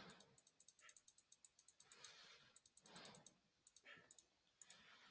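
Computer mouse button clicked rapidly over and over, in quick runs of faint clicks, as the date picker's month arrow is clicked to scroll back through the calendar.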